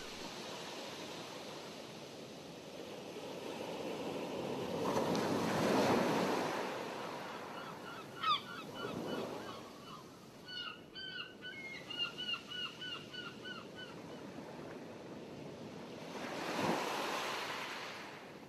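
Open-water ambience: water lapping and wind on the microphone, swelling and easing twice. In the middle a bird calls in a quick run of short repeated notes.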